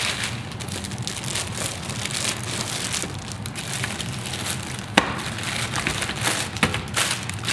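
Packaging rustling and crackling as cameras are handled and unpacked, with a sharp click about five seconds in.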